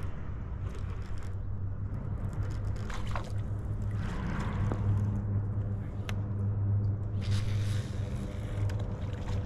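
A steady low rumbling hum, with a few faint clicks and short hissing patches over it.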